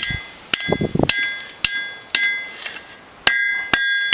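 Hammer blows on a hot steel bar being bent over the edge of an anvil, about two strikes a second, each followed by a bright metallic ring from the anvil. The ringing grows louder and longer over the last second.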